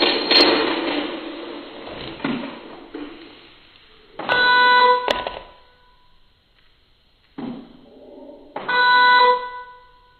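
Music fades out over the first two seconds. Then two electronic buzzer beeps sound, each about a second long and some four seconds apart, with a sharp click and a few faint knocks in between.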